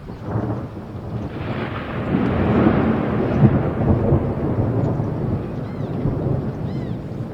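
A long roll of thunder: a deep rumble that swells about a second in, peaks, then slowly fades away.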